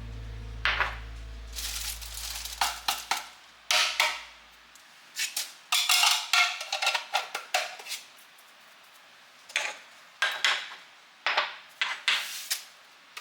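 Kitchenware being handled: sharp clinks and clatters in irregular clusters as hard dishes and containers are moved and set down. Background music fades out in the first few seconds.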